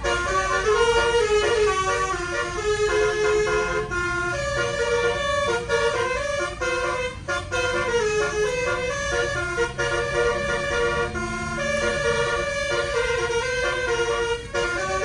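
Telolet air horns of the Tunggal Jaya 'Kids Panda' bus, twelve roof-mounted trumpets driven by a Basuri module, playing a continuous melody of held and stepping notes, with a low rumble underneath.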